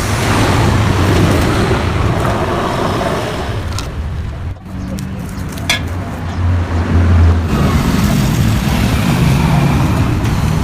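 Motor vehicle engine running steadily, getting louder for a stretch about six to seven seconds in.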